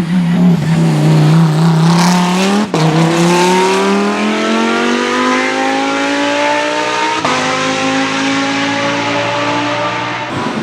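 Race car engine accelerating hard. The pitch holds, then drops at a sharp upshift about a quarter of the way in. It climbs steadily after that, with another quick upshift about two-thirds of the way in, and keeps rising.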